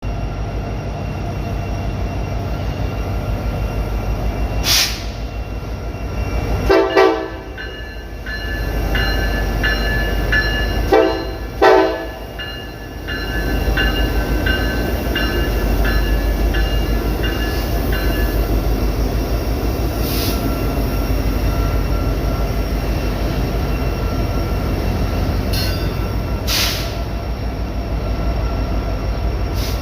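A diesel freight locomotive's multi-chime air horn sounds a long blast about seven seconds in, then two short blasts about four seconds later. The locomotive bell rings steadily, about two strokes a second, for some ten seconds after the horn starts. The diesel engine rumbles under it all.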